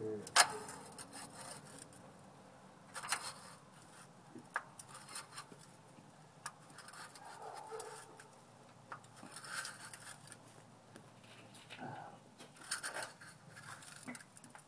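Spin-on oil filter on a Chevy Silverado being turned on its mount by hand: soft rubbing and scraping of the hand and filter can, with scattered small clicks.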